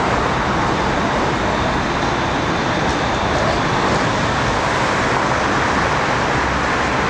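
Steady city street traffic noise: an even, continuous rush of passing vehicles with no single event standing out.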